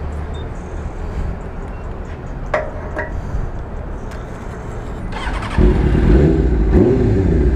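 Kawasaki sport bike engine being started: a short crank about five seconds in, then it catches and runs loudly. Two sharp clicks come a few seconds before.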